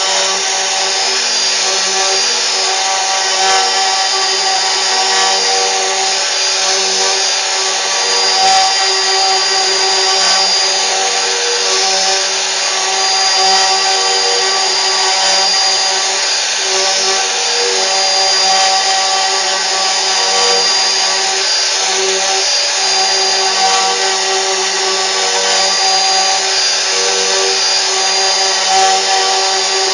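CNC router running steadily, its spindle and drives giving a continuous whine made of several steady tones.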